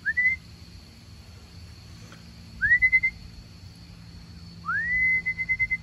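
A person whistling to call homing pigeons down into the loft: three whistles, each sliding up and then holding, the last and longest breaking into a quick flutter.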